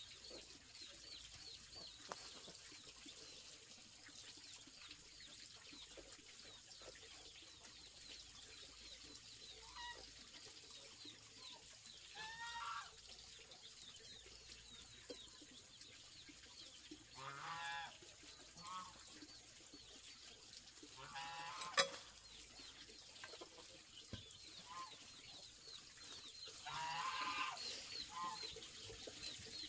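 Chickens clucking now and then, over faint high chirping, with one sharp knock about two-thirds of the way through.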